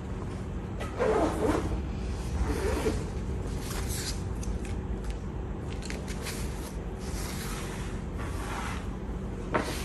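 A child's fabric backpack being handled and turned over on a wooden table: scattered rustles and scrapes of fabric and straps, with a sharp knock near the end.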